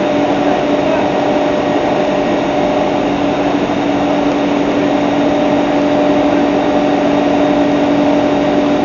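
PVS 125 V micro-cut mill running steadily while grinding roasted sesame into tahini: a loud, even machine hum with a constant pitch.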